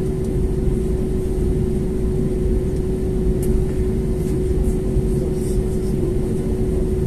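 Airbus A320neo's Pratt & Whitney geared turbofan engines at low taxi power, heard from inside the cabin beside the wing: a steady low rumble with one held hum over it.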